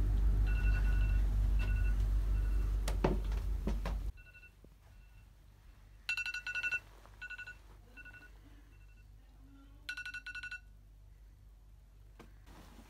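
Electronic alarm beeping in short high pips in a repeating pattern, with two quick rapid-fire runs of beeps. A loud low hum sits under it for the first four seconds and cuts off abruptly.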